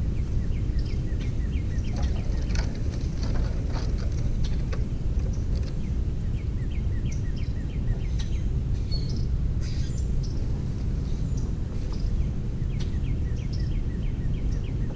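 Outdoor birdsong: a bird repeats a quick series of short, falling chirps three times, over a steady low background rumble, with a few sharp clicks in the first few seconds.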